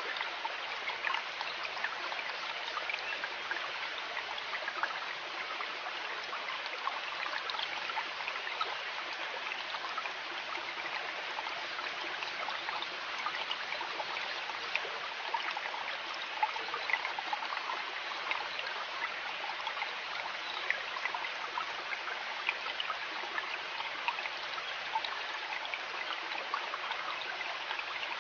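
River water flowing: a steady rushing and trickling that holds unchanged throughout.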